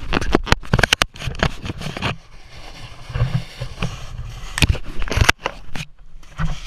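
Snowboard sliding and scraping over snow, with a low, uneven rumble of wind buffeting the action camera's microphone. Sharp knocks and rattles come throughout from the handheld camera pole, the loudest about a second from the end.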